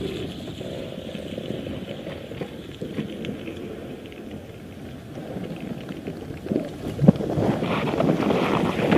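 Wind buffeting the microphone on open ice: a rough, steady rumble that grows louder near the end, with a few small clicks and one sharper knock about seven seconds in.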